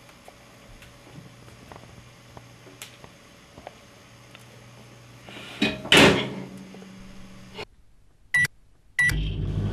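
Microwave oven being started: a couple of sharp knocks as the door is shut about halfway in, two short keypad beeps, then the oven starts running with a steady hum near the end.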